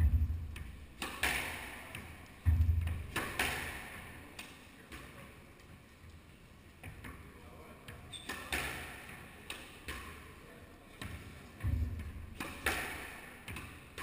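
A squash rally: the rubber ball is struck by rackets and smacks off the court walls and wooden floor. The sharp hits come irregularly, a second or more apart, some with a heavy thud, the loudest at the start and about two and a half seconds in.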